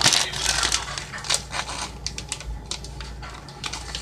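Plastic package of hard salami crinkling and crackling as it is handled, an irregular run of small clicks and rustles.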